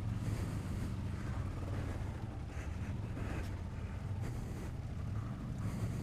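Motorcycle engine running steadily, with wind rushing on the microphone.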